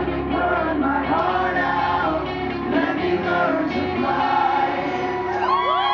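Live rock band with a male lead vocal and electric guitar. The low bass drops away about halfway through, and near the end the crowd starts whooping and cheering.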